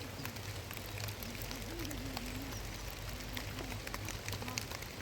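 Rain falling in a forest: a steady hiss of rain with scattered sharp drop ticks, and a faint wavering low tone a little before the middle.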